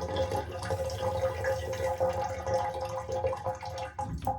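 Water running out of a Moen shower valve left open after the house supply was shut off, draining the water left in the pipes, with a steady tone over the rush of water.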